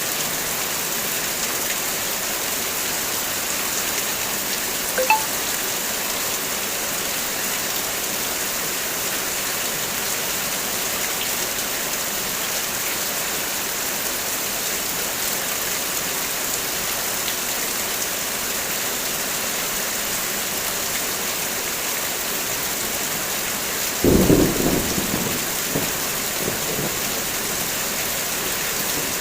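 Heavy rain falling steadily as an even hiss. About five seconds in there is one sharp click, and about 24 seconds in a short, low thunder rumble breaks in and dies away over a couple of seconds.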